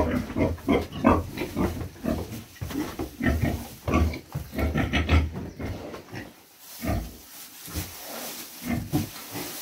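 A heavily pregnant sow, close to farrowing, grunting in short repeated grunts about three a second. The grunts die away about six seconds in, leaving fainter rustling as she noses in the straw.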